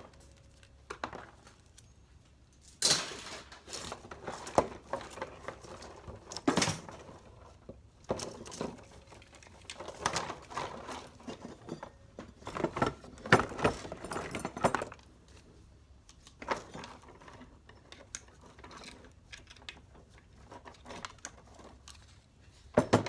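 Small pieces of scrap metal clinking and rattling as they are handled and sorted by hand, in irregular clusters of sharp clicks with quieter gaps between them, busiest around the middle.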